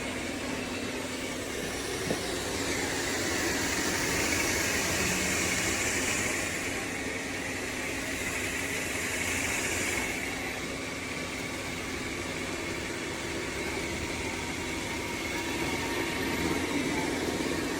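Dreame L40 Ultra robot vacuum running, its suction fan and brushes giving a steady whir. It grows louder about three seconds in, eases off again around ten seconds, and builds once more near the end.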